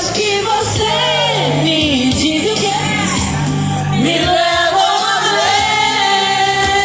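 Music with voices singing a melody over steady sustained bass notes, with some shouts mixed in.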